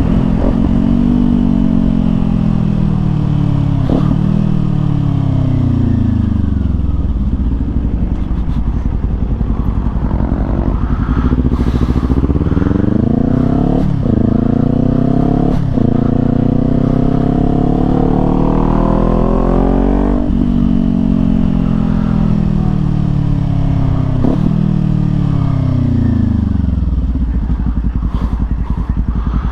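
Kawasaki Z400's parallel-twin engine under way, pulling through the gears: the pitch climbs and drops sharply at each upshift, with two quick shifts about halfway through. Long stretches of falling pitch come as the bike slows. Wind noise runs underneath.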